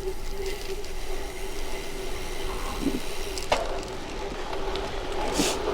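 Road bike riding on a wet road in the rain: steady wind and tyre noise with a constant hum, and a sharp click about three and a half seconds in.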